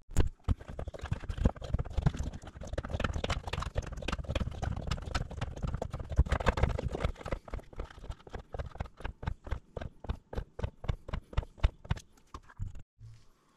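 Plastic hand pump on a gallon jug of resin being worked stroke after stroke to dispense into a measuring cup: a fast run of clacking pump strokes that settles into about three strokes a second and stops shortly before the end.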